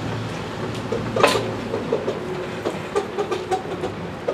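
Steel wheels of a small hand-pushed narrow-gauge rail trolley rolling over the track. There is a loud clank about a second in, then a run of lighter knocks and short squeaks.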